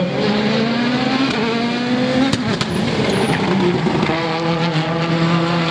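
A World Rally Car's engine accelerating hard, its pitch rising for about two seconds. A sharp crack follows, then the engine pulls again at a steadier pitch.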